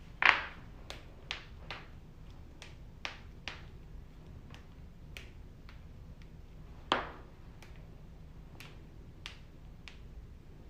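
Joints cracking: a loud sharp pop just after the start and another about seven seconds in, with a run of smaller clicks and pops between them.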